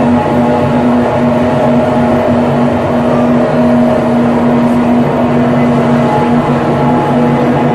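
Live dark-ambient drone: a dense, steady wash of rumbling noise with a held low hum and a few sustained higher tones on top.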